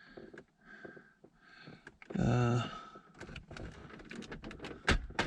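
Light clicks and rattles of plastic parts being handled behind a car's dashboard, getting busier in the second half, with one sharper click near the end. A short wordless hum comes about two seconds in.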